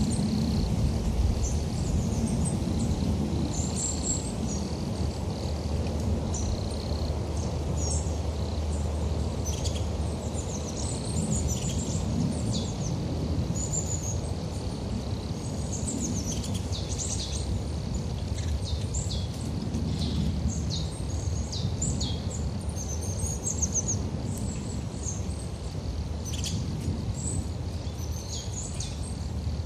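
Birds chirping and twittering in many short, high calls throughout, over a steady low background rumble of outdoor noise.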